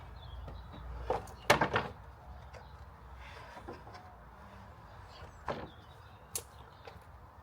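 A quick cluster of sharp knocks and clatters about a second and a half in, then two single knocks near the end, as parts are handled and fitted.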